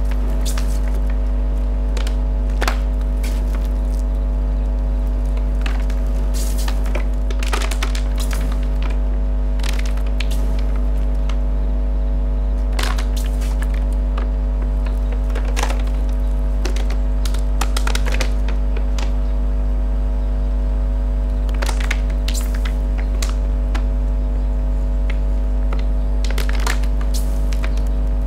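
Electric fan motors humming steadily, a low hum with several held tones, with irregular sharp clicks and cracks scattered throughout.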